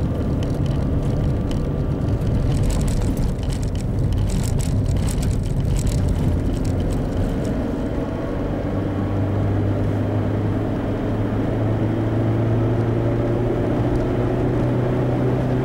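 1996 Opel Corsa B driving, heard from inside the cabin: engine and tyre noise, with gravel crackling under the tyres in the first half, then a steady engine drone on smooth pavement. The newly fitted resonator and muffler sound fine, with no strange noises or rattles.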